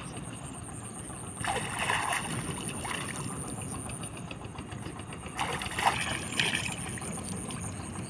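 Water splashing and dripping as a person scoops water onto his face with cupped hands while standing in shallow water, in two bursts, about a second and a half in and again about five and a half seconds in, over a steady background hiss.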